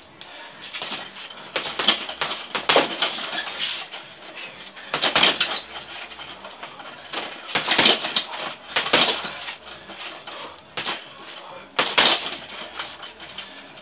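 Boxing gloves punching a hanging heavy bag in flurries of quick, hard blows with short pauses between, the bag's hanging chain clinking with the hits.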